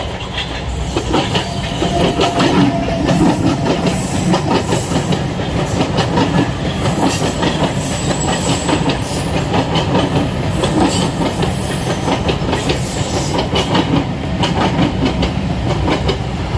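Indian Railways train running on the track, its wheels clattering steadily over the rail joints.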